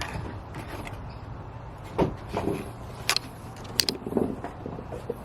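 A few sharp clicks and knocks, handling noise around the car, over a low steady hum.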